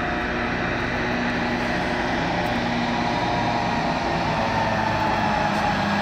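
Diesel engine of a MAN fire truck running steadily as the truck drives toward the listener.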